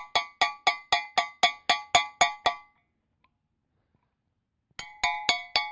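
Hammer tapping on a socket held over a caliper slide pin boot's metal ring, driving the boot the last bit into the caliper bracket. Quick, even, ringing metal-on-metal taps, about four a second; they stop about two and a half seconds in and start again near the end.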